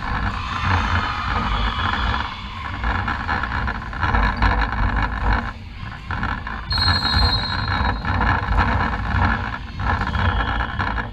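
Echoing indoor sports-hall ambience with a heavy low rumble and a steady wash of distant crowd and player noise. A short, high referee's whistle blast sounds about seven seconds in, the signal for the server to serve.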